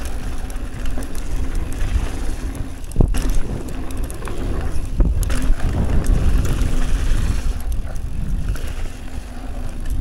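Mountain bike riding a dirt trail, heard through an action camera: wind rushing over the microphone and tyres rumbling over the ground. There are sharp knocks from the bike about three and five seconds in.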